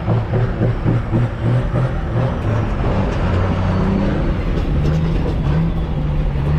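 Car engine running hard, held at full throttle, with its pitch wavering up and down. The engine is being pushed past its limits and ends up fried, blowing motor oil past its piston rings.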